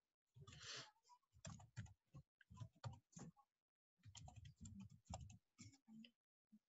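Faint computer keyboard typing: quick runs of keystrokes, with a short pause about midway.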